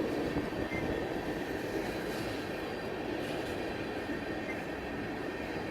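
Slow freight train of tank cars rolling past, a steady rumble of steel wheels on the rails as the train slows down.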